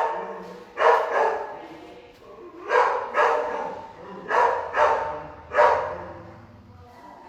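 Dog barking in a shelter kennel, about seven loud barks, mostly in quick pairs, each echoing off the hard kennel walls; the barking stops about six seconds in.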